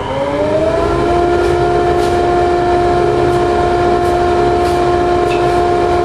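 Shop dust collector starting up: its whine rises in pitch and levels off about a second in, then it runs steadily at full speed.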